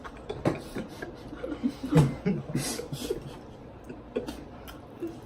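Close-up mouth sounds of eating: scattered smacks, clicks and chewing noises with a few brief hums, made in the manner of an ASMR mukbang.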